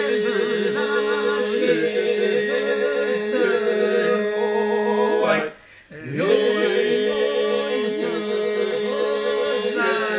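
A small group of men singing unaccompanied in parts: a steady drone is held beneath one or two moving melody voices, in the manner of Albanian polyphonic folk song. The singing breaks off for about half a second a little past halfway, then the drone and melody come back in together.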